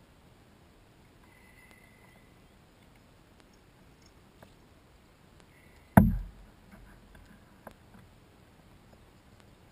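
One sharp, heavy knock against a plastic kayak hull a little past halfway, while a caught fish is handled at its side. A small click follows soon after; otherwise only faint handling noise.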